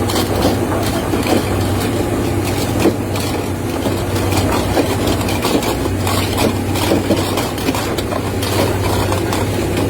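A fishing boat's engine running steadily with a low hum, with scattered knocks and clatter on top.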